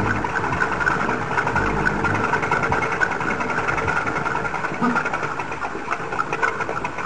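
VéloSoleX moped's small two-stroke engine running with a steady, rapid buzz.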